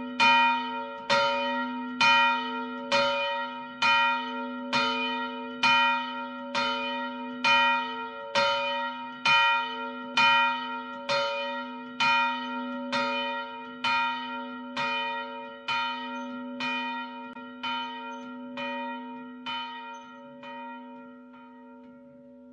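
A single church bell tolling, struck just under once a second, its deep hum carrying on between strokes. The strokes grow gradually fainter and stop near the end, leaving the hum to die away.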